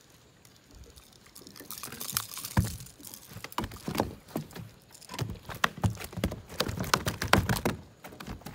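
A freshly landed snook flopping on a boat deck: a fast, irregular run of slaps and knocks from its body and tail. It starts about a second and a half in and goes on until near the end.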